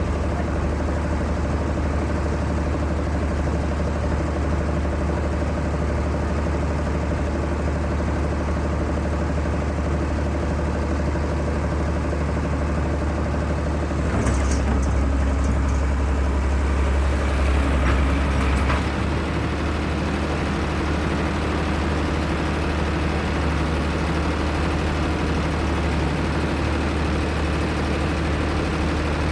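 Heavy excavator's diesel engine running steadily with a low hum. About halfway through it grows louder for several seconds, with a few short knocks, then settles back.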